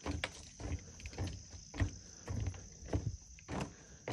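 Footsteps on a floating walkway deck, a series of soft thumps about two a second as someone walks along it.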